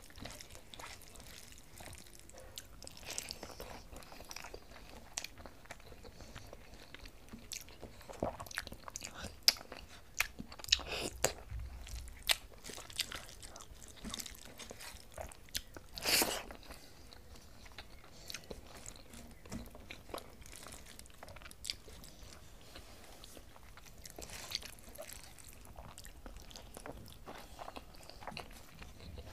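Close-up eating sounds of rice with potato curry eaten by hand: wet chewing with irregular mouth clicks and smacks. A few louder smacks come in the middle, the loudest about sixteen seconds in.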